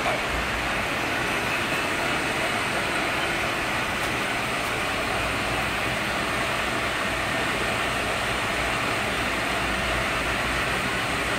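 Steady, even running noise of fiber cement board production line machinery, a constant mechanical din with a low rumble underneath.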